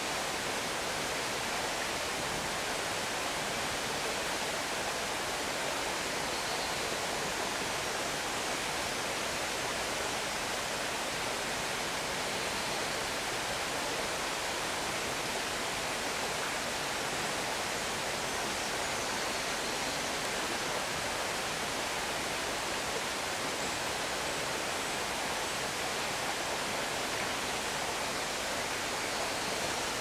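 Steady, even rushing hiss with no distinct events, the kind made by running water or broad background noise.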